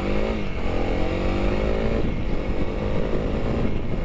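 Honda CRF300L's single-cylinder engine accelerating hard under full throttle. The revs climb, drop at an upshift about half a second in and again about two seconds in, then climb once more.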